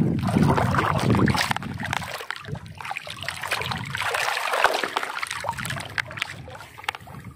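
Seawater sloshing and splashing in uneven surges.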